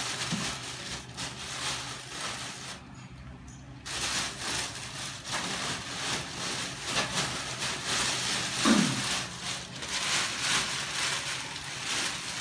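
Plastic courier bag crinkling and rustling as it is handled and pulled open around a boxed parcel. It eases off briefly about three seconds in, and a short low sliding sound near the end stands out as the loudest moment.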